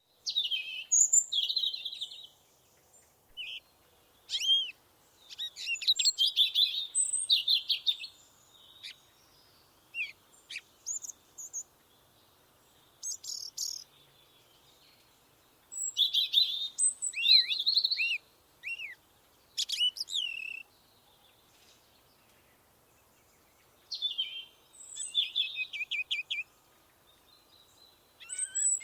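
Songbirds singing in a forest: bouts of high, quick chirping and trilled song phrases, several birds in turn, separated by short quiet pauses.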